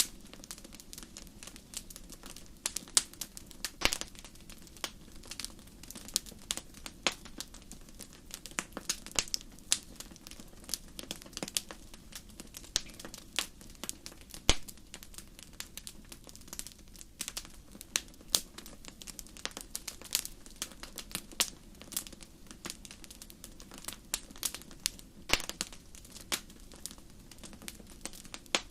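Wood fire crackling in a fireplace: irregular sharp pops and snaps, several a second, over a steady low rush of the flames.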